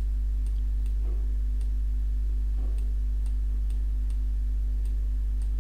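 Steady low electrical hum with a faint higher tone over it, and faint light ticks at uneven intervals.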